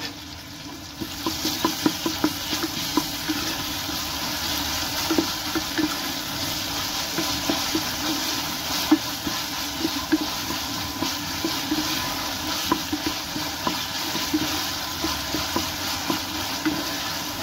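Diced onion and red pepper sizzling in olive oil in a pot, stirred with a wooden spoon that knocks and scrapes against the pan. The sizzle grows louder about a second in and then holds steady.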